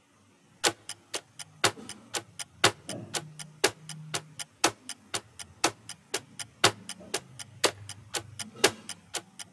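Countdown timer sound effect: an even clock-like ticking that starts just over half a second in, with a louder tick about once a second and softer ticks between.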